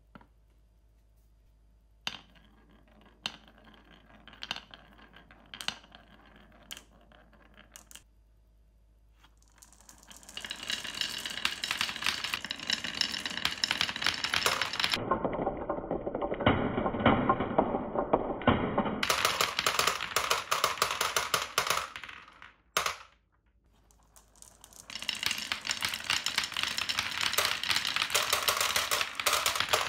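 Many glass marbles rolling and clattering down a clear plastic chute and a wooden zigzag wave slope: a dense, continuous rattle of clicks. Before it there are a few separate sharp clicks about a second apart, and the rattle breaks off briefly about three-quarters of the way through.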